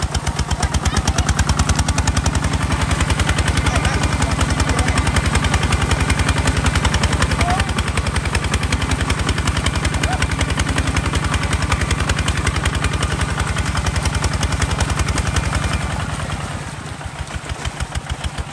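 Kubota ZT155 DI single-cylinder diesel on a walking tractor running hard with a rapid, even exhaust beat, its cage wheels churning deep mud. Near the end the engine eases off and the beat slows.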